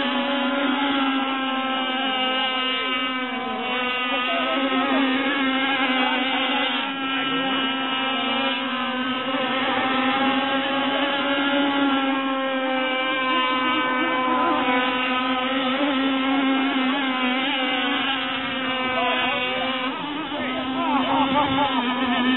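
Gas-powered RC race boats, two-stroke Zenoah 260 engines, running at speed across the water with a high, steady engine note. The pitch wavers slightly as the boats run, and it becomes unsettled near the end.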